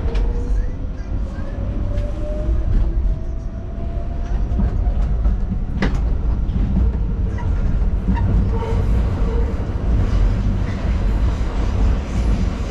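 New York City subway car running, heard from inside the car: a steady low rumble from the wheels and track, with a thin motor whine rising slowly in pitch over the first few seconds as the train picks up speed, and one sharp click about six seconds in.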